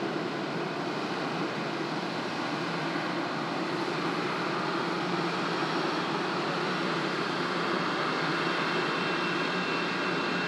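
Jet engines of an Airbus A320-214 (CFM56-5B turbofans) running as the airliner moves close past: a steady rushing engine noise that grows slightly louder, with a faint high whine coming in near the end.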